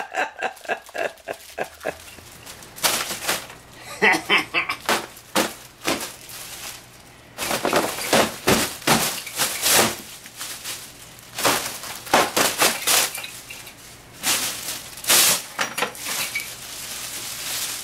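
Foil balloons crinkling and rustling as they are grabbed, squeezed and swung about: a long run of irregular sharp crackles, some loud.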